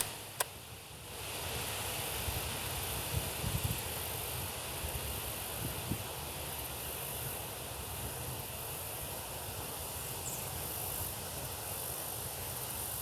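Steady wind noise on the microphone, with a sharp click at the very start and a fainter click about half a second later.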